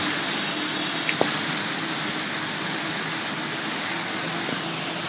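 Heavy rain falling onto standing water, a steady hiss of splashing drops.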